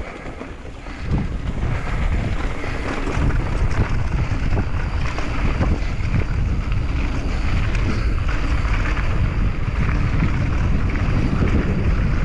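Wind buffeting the microphone of a mountain bike's camera while riding downhill, mixed with the rumble of knobby tyres rolling over dirt and gravel. The noise grows louder about a second in and then holds steady.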